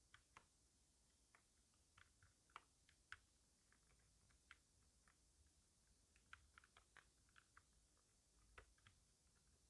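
Computer keyboard being typed on: faint, irregular key clicks, some in quick clusters and some spaced by short pauses.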